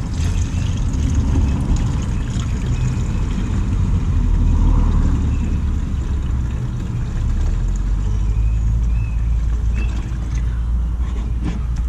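Washer fluid pouring in a stream from a plastic bucket into a Jeep's plastic windshield washer reservoir, over a steady low rumble.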